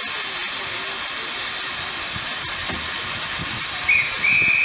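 NER Class H (LNER Y7) 0-4-0 tank locomotive standing in steam, hissing steadily. Near the end its steam whistle sounds: a short pip, then a held note.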